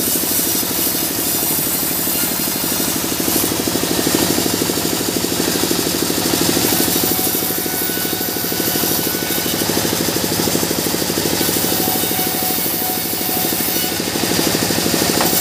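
Sawmill band saw running steadily and ripping mahogany into boards: a loud, continuous machine noise with a fast even throb under the hiss of the blade cutting the wood.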